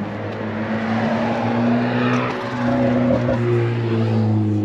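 Fire engine's diesel engine running with a steady low hum, a little louder from about a second in. There is a single short knock about three seconds in.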